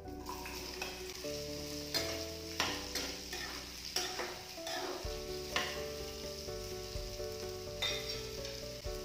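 Cubed pumpkin sizzling as it goes into hot oil in a kadai, stirred with a metal spatula: a steady frying hiss with repeated sharp scrapes of the spatula against the pan, thickest in the first half.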